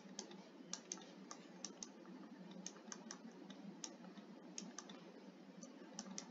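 Faint, irregular taps and clicks of a stylus writing on a tablet screen, several a second, over a low steady background hum.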